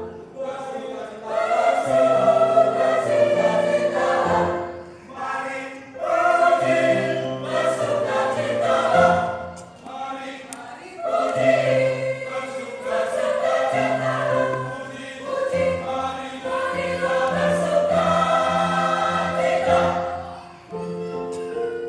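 Choir singing, in phrases broken by short pauses every few seconds.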